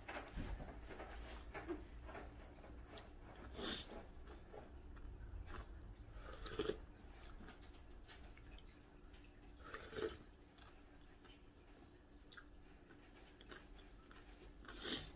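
Person eating soup with a metal spoon: the spoon knocks and scrapes against the ceramic bowl four times, spread a few seconds apart, with quiet chewing in between.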